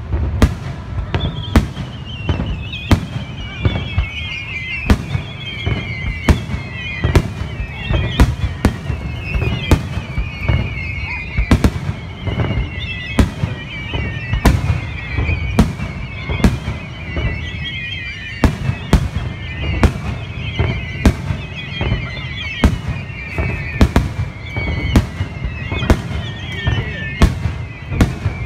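Aerial firework shells bursting overhead in a rapid, irregular string of booms and bangs. From about a second in, a high warbling whistle sweeps down in pitch over and over, about once a second.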